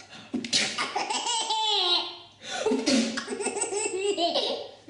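Baby laughing hard in two long fits, each starting with a sudden loud burst and running on in breathy, rising and falling peals.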